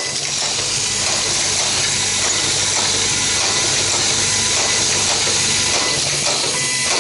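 YFM-2NCA-N automatic nylon zipper slider mounting machine running on its own cycle: a steady hiss of its pneumatic cylinders with faint mechanical clicks.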